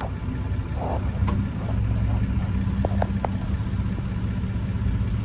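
Vehicle engine idling with a steady low hum that grows a little stronger about two seconds in, with a few light clicks.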